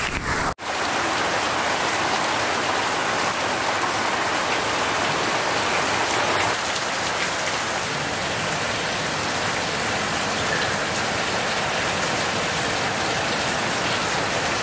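Heavy rain pouring steadily onto a puddle on pavement, a dense even splashing of drops, after a brief dropout just after the start.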